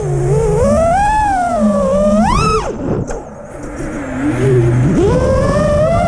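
FPV racing quadcopter's brushless motors whining, the pitch rising and falling with the throttle. About two and a half seconds in, a sharp throttle punch is followed by a chop almost to idle. The motors spool back up about five seconds in.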